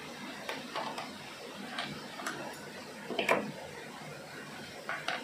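Light clicks and taps from a car instrument-cluster circuit board being handled and shifted on a workbench, about six in all, the loudest a little past halfway.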